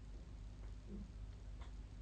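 Quiet bedroom during a sleep recording between snores: a faint steady low hum, with a brief soft low sound about halfway through and a faint click shortly after.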